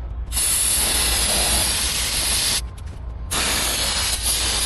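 Aerosol brake cleaner sprayed in two long bursts of about two seconds each, with a short break between, cleaning the hub mounting surface of the truck's steering knuckle.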